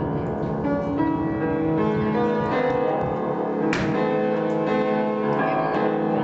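Music with long held notes throughout, over which a hammer strikes nuts in a few sharp knocks, the loudest a little under four seconds in.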